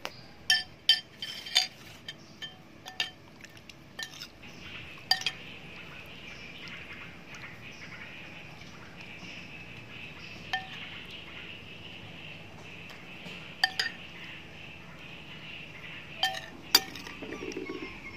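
Sharp clinks with a short ring, as a metal spoon knocks against a ceramic bowl while scooping fish amok mixture. There is a quick cluster of clinks at the start, then a few single ones and pairs later.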